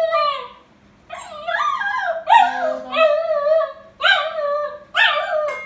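Newfoundland-mix puppy whining: a string of about five high-pitched whimpers, each sliding downward in pitch, following the tail of a longer falling whine at the start.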